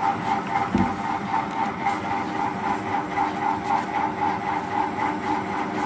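Steady machine-like hum with a tone that pulses about four times a second, and one low thump about a second in.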